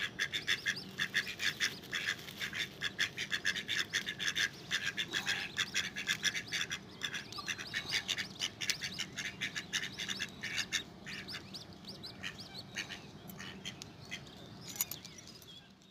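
Ducks quacking in quick, chattering runs of short calls, dense at first and thinning out over the last few seconds.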